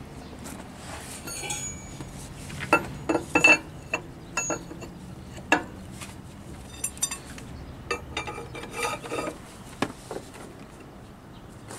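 Steel clinks and clanks of a truck's on-board lug wrench, a box socket and its long tubular bar, being handled and fitted onto a rear-wheel lug nut. There are a dozen or so sharp ringing knocks at uneven intervals, the loudest a cluster about three seconds in.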